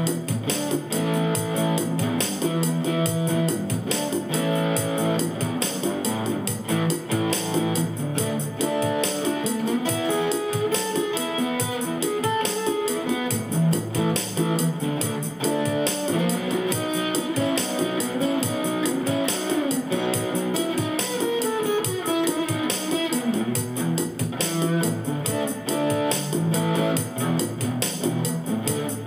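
Instrumental acoustic guitar played through a 'Bonsai' overdrive pedal and a small Cube-10 amp set clean. A picked melody runs over sustained low notes, with a falling run of notes about two-thirds of the way through.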